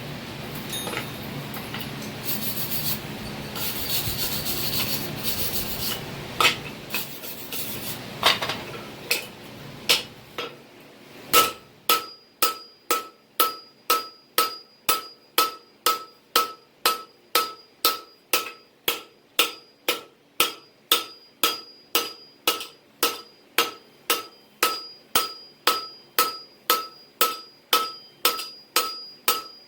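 Steady rushing noise with a few scattered knocks, then a steady rhythm of hammer blows on steel at an anvil, about two strikes a second, each blow ringing.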